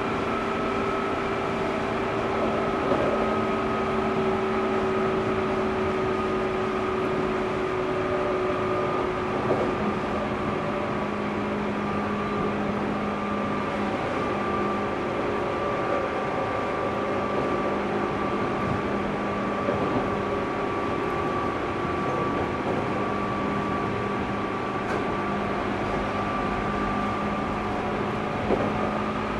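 Saikyo Line 205 series electric train running at a steady speed, heard from inside a motor car: a steady, multi-tone whine from its externally fan-cooled MT61 traction motors over the rumble of wheels on rail, with a few faint clicks.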